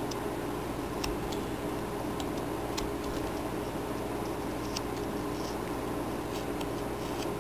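Carving knife paring small chips from a wooden carving, heard as faint, irregular clicks and snicks, about a dozen scattered through, over a steady background hum.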